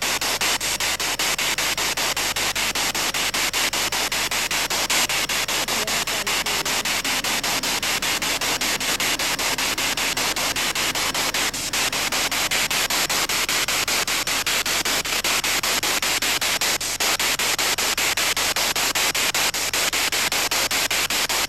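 SB7 spirit box sweeping through radio stations: a steady hiss of static, chopped into rapid even pulses several times a second as it skips from channel to channel.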